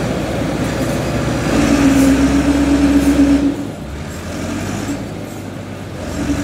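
Massey Ferguson 385 tractor's diesel engine working hard under load, pulling a loaded trailer that is stuck in mud. The engine note swells and holds strongly for about two seconds, eases about three and a half seconds in, then builds again near the end.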